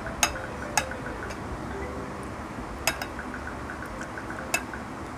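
Cutlery clinking against a plate or bowl during a meal: four sharp clinks, two close together near the start and two more spaced out later.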